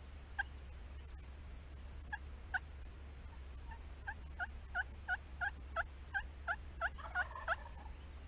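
Turkey yelping: a few single yelps, then a run of about a dozen yelps at roughly three a second starting about halfway through, each a short note dropping in pitch.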